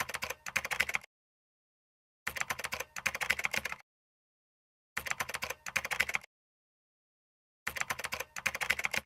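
Computer keyboard typing: four short bursts of rapid key clicks, each lasting about a second, with dead silence between them, as in an added typing sound effect.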